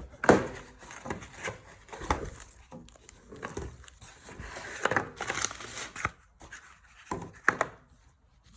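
Crinkling packaging and knocks of a Lite-Brite toy and its parts being handled during unboxing. The irregular rustles and clicks stop about eight seconds in.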